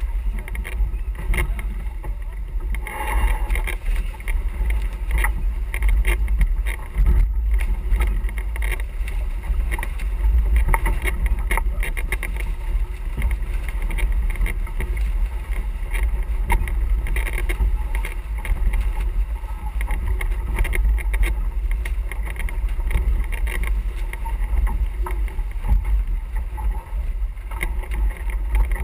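Wind buffeting the microphone in a steady low rumble, over the rush of water along the hull of a sailing yacht under way.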